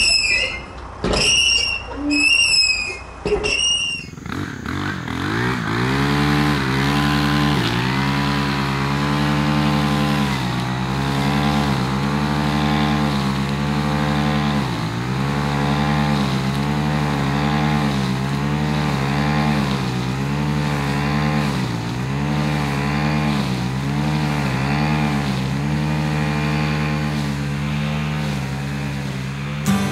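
Gas string trimmer running at high speed. Its engine note dips briefly about once a second as the line sweeps through grass. In the first few seconds, before the engine starts, there are several short high chirps.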